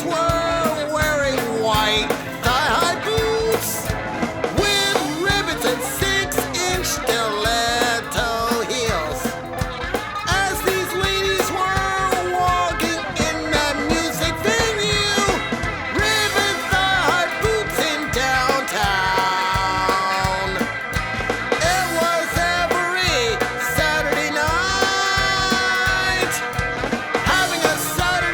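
Music: a song with a sung melody over a rock-style band backing.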